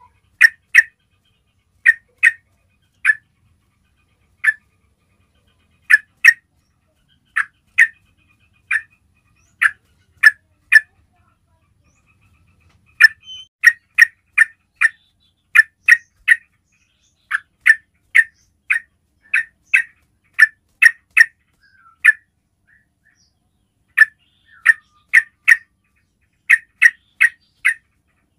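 Yellow-vented bulbul giving its basic call: loud, very short, sharp chirps, singly, in pairs or in quick runs of three or four, with a pause of about two seconds near the middle.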